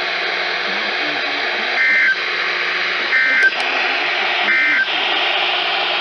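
Weather radio receiver hissing with static, broken by three short buzzy data bursts a little over a second apart. These are the EAS end-of-message code that closes a broadcast warning.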